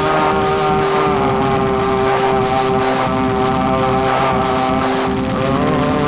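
Experimental drone music: several sustained tones held steady over a dense, rumbling noise bed. The upper tones waver slightly about five seconds in.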